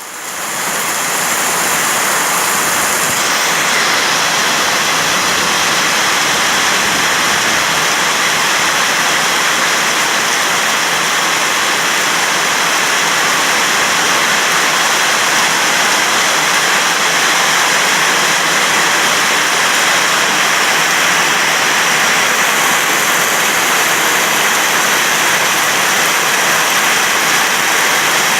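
Heavy rain falling steadily, a loud, dense and unbroken hiss.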